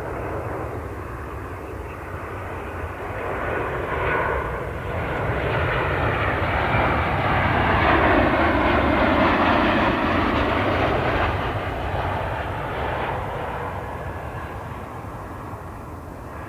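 Jet airliner passing on the runway, its engine noise swelling to a peak about halfway through and then fading away.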